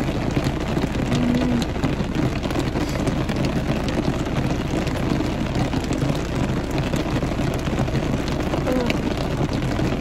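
Rain falling on a car's roof, heard from inside the cabin: a steady hiss with scattered drop taps.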